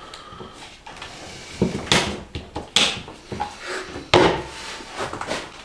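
Several sharp knocks and clacks as an Einhell TC-BJ 900 biscuit joiner is handled and set against a wooden board, the loudest about four seconds in. No motor runs: the machine is unplugged.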